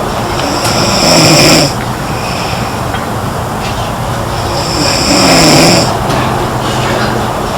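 A girl snoring in her sleep: two loud snores about three and a half seconds apart, each a low rattling breath with a hissing edge.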